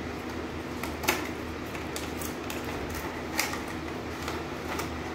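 Cardboard box and plastic blister tray of a toy-car pack being handled and pulled open: scattered clicks and crinkles, the sharpest about a second in and again past three seconds, over a steady low hum.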